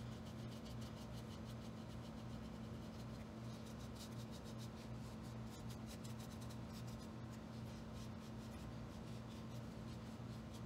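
Foam brush applying wood stain to a sanded Woodfill 3D print: a faint, quick run of scratchy brush strokes, busiest in the middle and again near the end, over a steady low hum.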